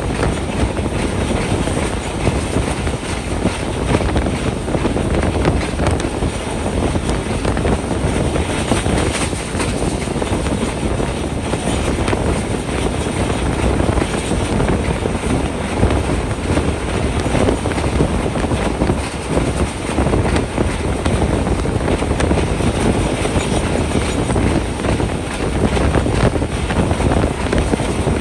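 A passenger train coach running along the track: a steady rumble of wheels on the rails, mixed with rushing air.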